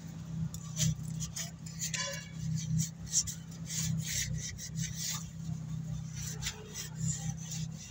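Irregular short rubbing and scraping noises over a steady low hum.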